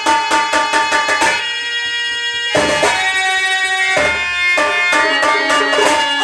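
Instrumental folk stage music: rapid hand-drum strokes in the tabla style, thinning out after about a second, under a held melody of sustained tones that shifts chord twice.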